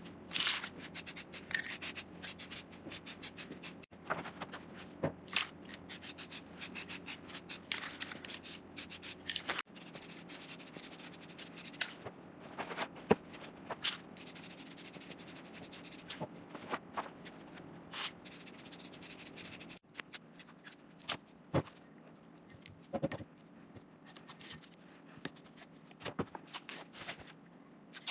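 Hand tools scraping and rubbing on a steel planer column in short, irregular strokes, as its roughly machined surfaces are cleaned up. The sound changes abruptly several times, as if cut between passes.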